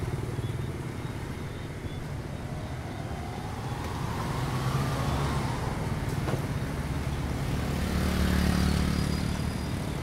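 Dense street traffic made mostly by motorbikes and scooters: a steady drone of many small engines. Midway one engine rises in pitch as it speeds up, a short click comes a little after that, and the traffic grows louder near the end.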